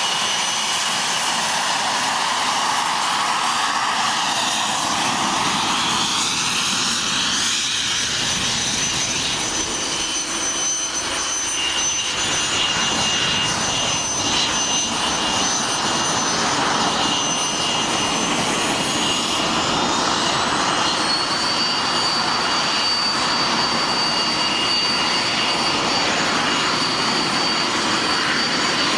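The two stacked Rolls-Royce Avon turbojets of an English Electric Lightning F.6 running as it taxis: a steady, loud jet whine over a dense rush of jet noise. About two-thirds of the way through, the whine rises in pitch and settles at a higher note.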